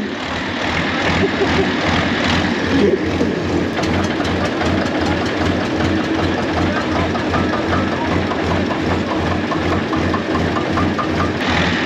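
Vintage tractor engines idling: a slow, regular knocking beat over a steady engine drone.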